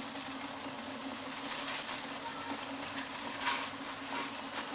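A steady low hum under an even hiss, with a few faint taps.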